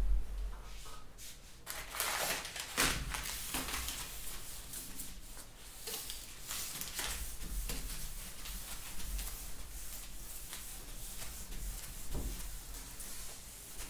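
Marker pen writing on a whiteboard in short, irregular strokes, with a dull bump right at the start.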